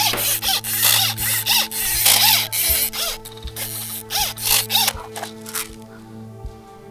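Rustling and scraping of clothing and gear close to the microphone, in a string of short noisy bursts that stop after about five and a half seconds, over background music with steady held low notes.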